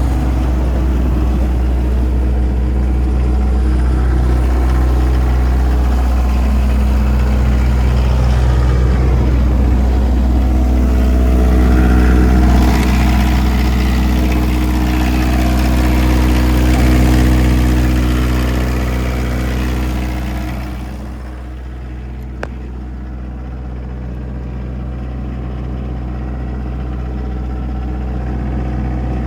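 Power Pro 25 kW diesel generator's engine running at a steady speed, a deep, even drone. The sound drops noticeably about two-thirds of the way through, then slowly grows louder again, with a single sharp click soon after the drop.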